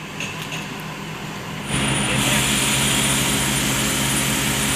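Mercedes-Benz coach's diesel engine running steadily while being warmed up. About two seconds in it becomes suddenly louder, with a thin high whine over it.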